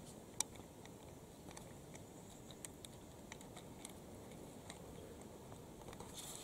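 Near quiet: a low background hiss with a few faint, sharp clicks scattered at irregular intervals, the clearest about half a second in.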